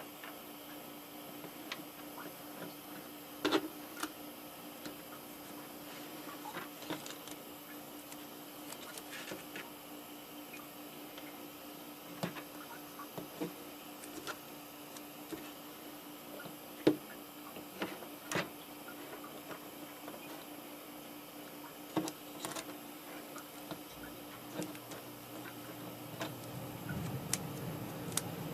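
Scattered light clicks and taps of small wires and tools being handled while soldering, over a steady faint hum and hiss. A low hum comes in about four seconds from the end.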